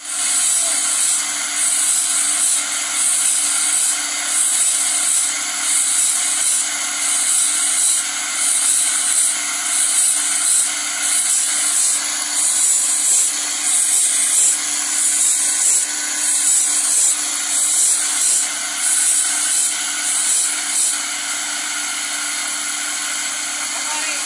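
Motor-driven grinding wheel sharpening a steel bandsaw blade tooth by tooth, a high rasp of stone on steel repeating a little faster than once a second as each tooth is ground. About 21 seconds in the grinding stops and only the motor and wheel keep running.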